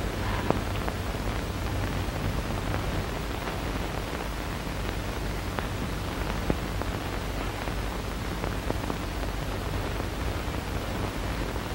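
Steady hiss with a low hum and scattered faint clicks and pops: the surface noise of an early sound-film soundtrack.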